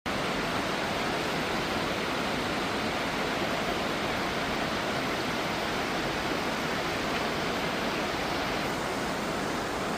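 Rushing water, an even, unbroken rush without any change in level.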